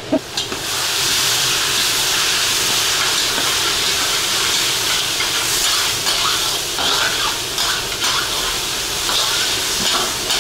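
Shredded carrot sizzling in hot oil in a plov kazan as it is dropped in by hand: a loud, steady hiss that starts suddenly about half a second in, with scattered crackles.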